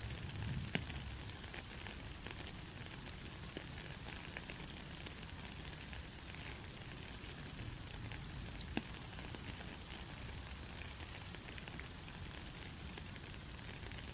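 Steady white-noise hiss for a baby's sleep, even throughout, with a low rumble underneath and a few faint clicks, like a light rain or crackle texture.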